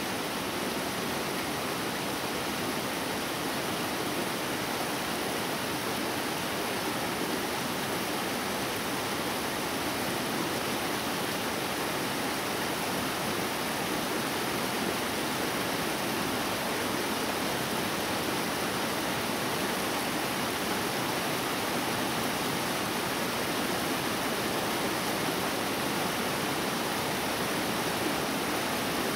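Mountain stream rushing steadily over rocks and small cascades, a constant even wash of water.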